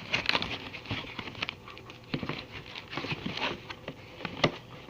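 Hands working open a laptop's cardboard box and pulling out its foam packing: irregular rustling and scraping with scattered sharp knocks, the sharpest about four and a half seconds in.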